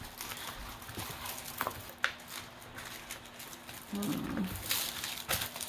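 Clear plastic film on a diamond painting canvas rustling and crinkling as hands smooth it flat and lift its edge, with a few light clicks. A short hum of a voice about four seconds in.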